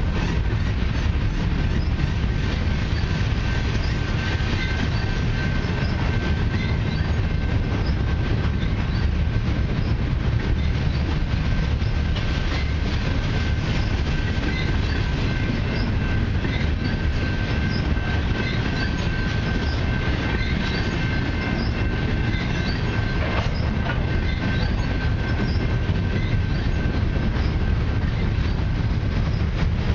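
Herzog ballast hopper cars of a freight train rolling past, a steady low rumble with wheels clicking over the rail joints. A thin, steady wheel squeal runs through most of the passage.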